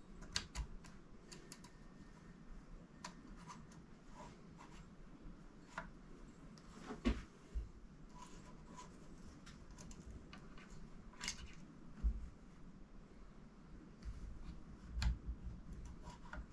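Scattered clicks and light knocks of a Browning BAR rifle's gas piston and action parts being handled and worked loose during disassembly, about a dozen spread over the span.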